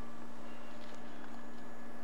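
A steady low hum, with a few faint small clicks of hands working a rubber hose and plastic T-fitting.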